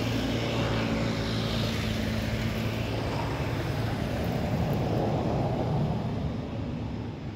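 Engine drone of a passing vehicle, with a low hum, steady and then fading away about six seconds in.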